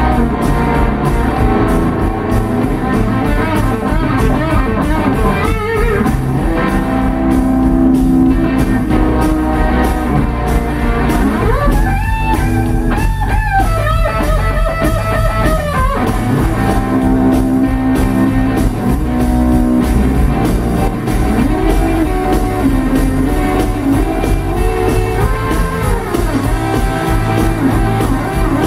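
Live blues band playing an instrumental: electric guitar lead over electric bass and a drum kit, with long held, bent guitar notes in the middle.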